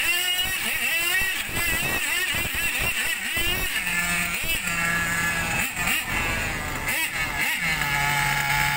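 Radio-controlled rally car's motor whining quickly up and down in pitch as it is driven. From about four seconds in, a steady lower engine note joins it.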